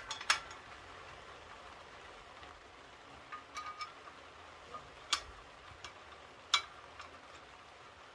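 Scattered sharp metal clinks and taps as a clutch pressure plate is handled and seated against the flywheel of a 1948 Ford F5. The loudest clink comes about a third of a second in and another at about six and a half seconds, with smaller taps between, over a faint steady hiss.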